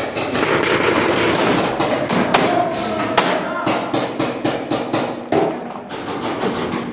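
Paintball markers firing in rapid, irregular volleys, several sharp shots a second over a dense wash of noise. Two cracks stand out as the loudest, a little before and a little after the middle.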